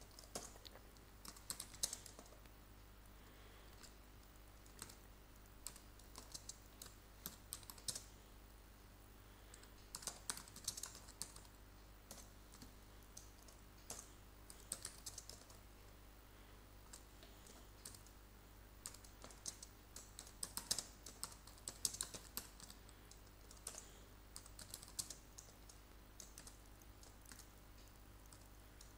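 Faint typing on a computer keyboard: keystrokes come in short bursts with pauses of a second or two between them.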